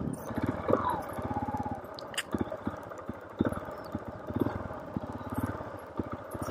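Motorcycle engine running at low revs, its firing pulses plain and evenly spaced, as the bike rolls slowly over a rough grassy dirt track, with a few brief knocks. A short whining tone falls in pitch about a second in.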